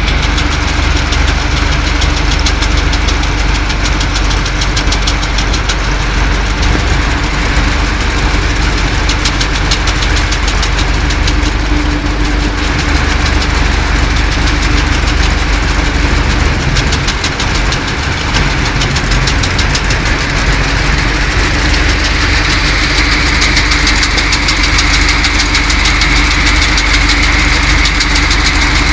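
Water hyacinth harvester's engine running steadily under a continuous rapid mechanical clatter, with a steady hum throughout.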